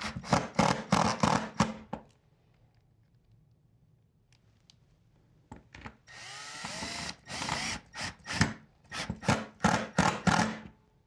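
Milwaukee cordless impact driver driving screws through a flag-pole bracket into its mounting block. It goes in two spells of short rattling bursts, the first ending about two seconds in and the second starting about six seconds in.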